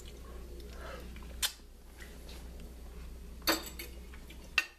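Metal forks clinking against a stainless steel pan of shredded chicken: one sharp clink about a second and a half in, a short cluster of clinks about three and a half seconds in, and another clink near the end.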